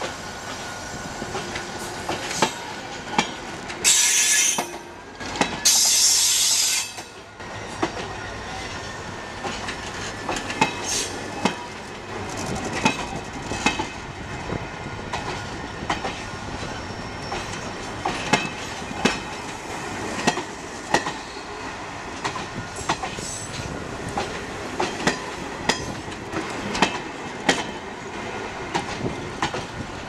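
Passenger train cars rolling past close by, their wheels clicking and clacking over rail joints. Two loud, high, hissing screeches come about four and six seconds in.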